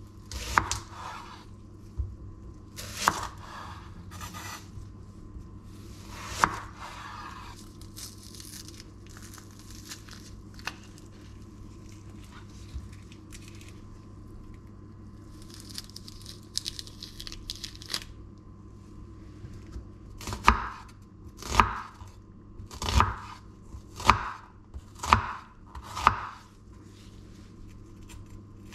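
Chef's knife cutting an onion on a wooden cutting board. First come a few separate knocks of the blade on the board. In the middle the dry onion skin crackles as it is peeled. Near the end come six steady chops about a second apart.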